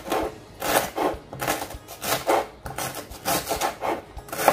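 Kitchen knife slicing a lemongrass stalk into thin rings on a cutting board, about two cuts a second.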